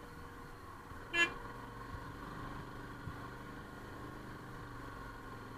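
Motorbike engine running steadily on the move, with one short horn toot about a second in.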